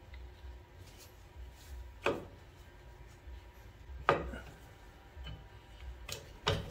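Rear drum brake shoes and spring hardware clinking against the steel backing plate as they are worked loose by hand. There are sharp clicks about two seconds in and about four seconds in, and two quick ones close together near the end.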